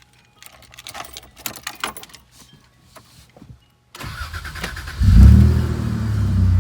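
Light clicks and rattles, then about four seconds in the starter cranks the 1989 Toyota 4Runner's swapped-in 3.4 V6 for about a second. The engine catches with a loud burst of revs and settles into a steady idle. It starts right away with a new aftermarket starter relay wired in to cure a one-click no-start.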